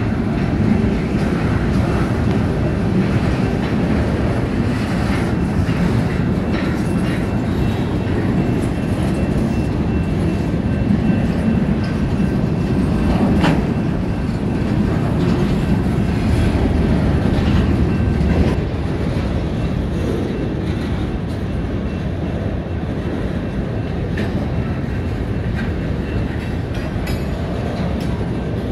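Freight cars rolling past, a steady rumble with wheels clicking over the rail joints and one sharp clank about halfway through. The sound drops somewhat about two-thirds of the way in as the train is heard from farther away.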